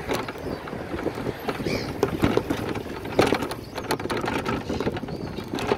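Wind buffeting the microphone on a moving bicycle, with a steady low rumble and frequent short rattles and clicks.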